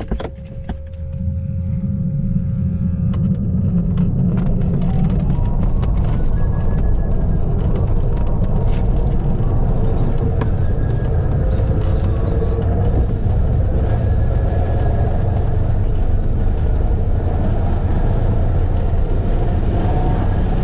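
Rumble and airflow noise in an LS3 sailplane's cockpit during its launch, building over the first two seconds as the glider accelerates, then holding steady.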